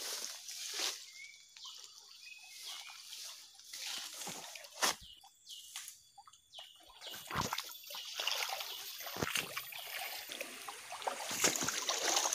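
Footsteps sloshing and splashing through a shallow, muddy stream, with rustling of undergrowth and a few sharp knocks.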